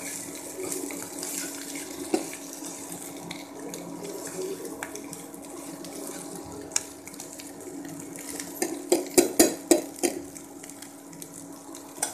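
Spatula stirring and scraping sliced oyster mushrooms, onion and green pepper in a nonstick frying pan over a steady frying hiss. A quick run of sharp clicks against the pan comes about nine seconds in.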